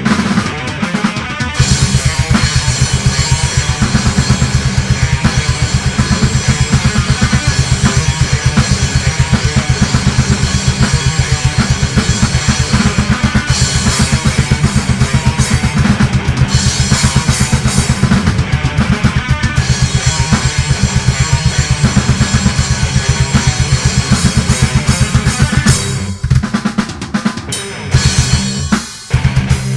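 Death metal music: a rapid, steady bass-drum beat with snare and guitar, breaking off briefly twice near the end.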